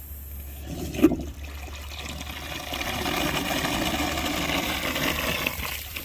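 A sharp click, then water rushing, building about two seconds in and cutting off near the end, over a steady low hum.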